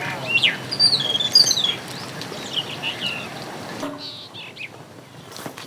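Birds chirping: a quick run of high calls sweeping up and down in the first two seconds, and a few more about three seconds in.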